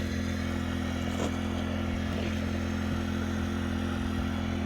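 Small engine running steadily at a constant speed, an even hum with no change in pitch, most likely the motor driving the water pump for the prospecting hose.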